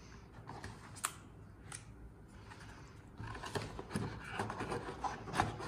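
Cardboard packaging being handled. A couple of light clicks come first, then from about three seconds in there is steady rustling and scraping as a white cardboard box's flaps and insert are opened and shifted.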